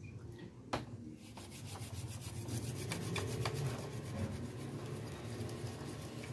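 A brush scrubbing rapidly back and forth across the solder side of a printed circuit board, in a dense run of scratchy strokes that starts about a second in, after a single sharp click.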